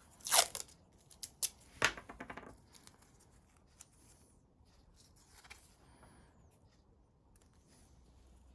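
Hands working on bicycle parts: a few short, sharp clicks and rasps in the first two seconds, the loudest about half a second in, then only faint handling noises.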